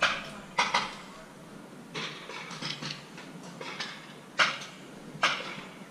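Paintball markers firing: about eight sharp single pops at irregular intervals, including a quick pair about half a second in and the loudest shot near the end.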